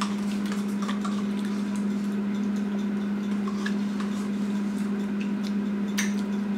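A spoon scraping and tapping inside a small plastic yogurt cup: faint scattered clicks and scrapes, with a sharper click near the end. A steady low hum runs underneath and is the loudest thing.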